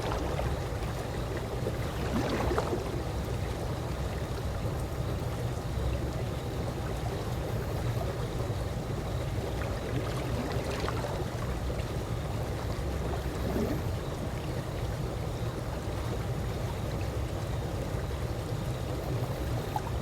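Swimming-pool water lapping gently in a steady low wash, with a few soft splashes and laps now and then.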